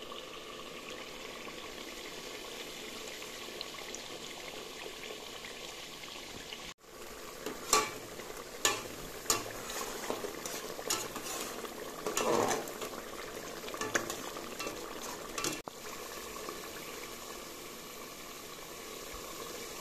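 Tomato-and-sausage sauce sizzling and bubbling in a metal pot on the stove, a steady hiss. In the middle few seconds a spoon knocks and clinks against the pot several times as it is stirred.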